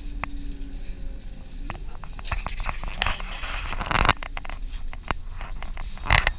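Inside a city bus: a steady low engine rumble with many sharp rattles and clicks, and a loud hissing rush a little over two seconds in that lasts about two seconds, with another short burst near the end.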